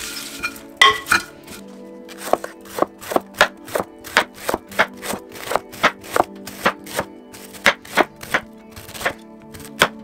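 Kitchen knife shredding a head of white cabbage on a wooden cutting board: a steady run of crisp cuts, about three a second, from about two seconds in. A couple of louder ringing knocks come about a second in. Background music plays throughout.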